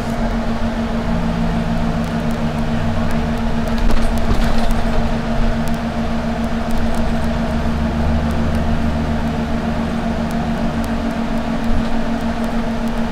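Long Island Rail Road passenger car heard from inside while moving: a steady hum over a low rumble, with scattered faint clicks.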